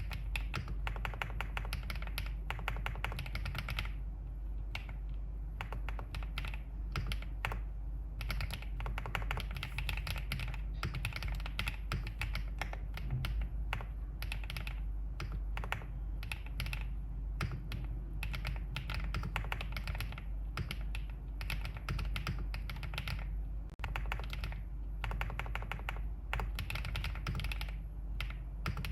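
Typing on a Wave75 mechanical keyboard with an aluminium case and Green Bamboo switches: quick runs of key clacks broken by short pauses.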